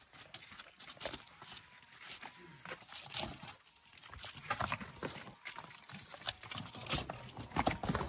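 Pack donkey's hooves clip-clopping and clattering over rocks and loose stones on a rocky trail, in irregular knocks and scrapes.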